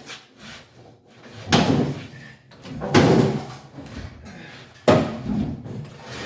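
Three loud bangs of car-body sheet metal, about a second and a half apart, each with a short ring after it, as a cut-out floor section is yanked and torn loose.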